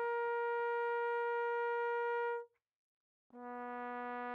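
Recorded tenor trombone playing long tones. One held high note stops about two and a half seconds in, there is a brief silence, then a held note an octave lower begins.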